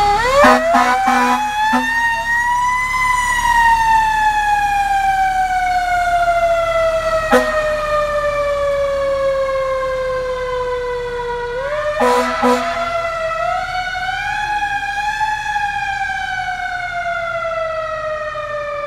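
Fire truck siren winding up, then slowly winding down in pitch over several seconds. It winds up again about two-thirds of the way through and falls once more. Short blasts of the truck's air horn come in a cluster at the start, once in the middle and twice as the siren rises again.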